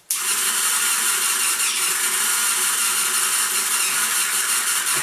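Small electric motor of a homemade string-and-pulley cat toy switched on and running steadily, a loud even whir as it drives the string loop around the pulleys.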